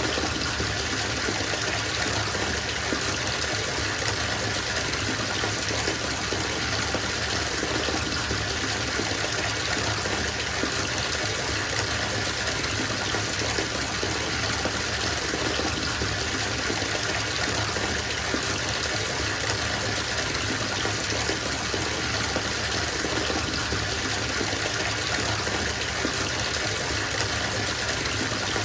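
Bathtub filling from the tap: a steady gush of running water pouring into the tub.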